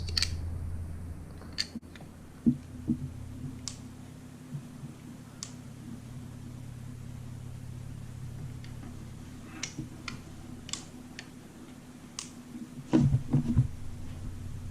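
Scattered light clicks and knocks of gel blaster parts being handled and worked apart during disassembly, with a louder cluster of knocks near the end, over a steady low hum.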